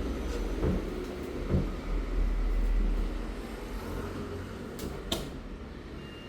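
Sampo top-load washing machine running: a steady low rumble with a few sharp knocks and clunks.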